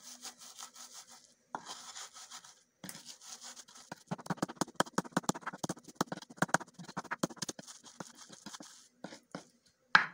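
Garlic and ginger being ground by hand with a stone on a flat board. For the first few seconds it scrapes and rubs, then it turns into a fast run of knocks, several a second, as the stone pounds them, ending in a few scattered knocks.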